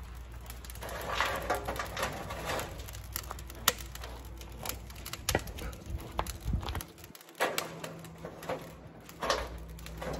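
Canola oil cooking spray hissing in several bursts as it is sprayed into the firebox and cooking chamber of a steel offset smoker to season it, with a few sharp knocks in between.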